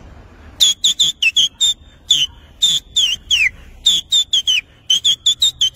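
A man whistling through a surgical face mask: a rapid run of short, loud, high notes, about three or four a second, some sliding down in pitch. It starts about half a second in.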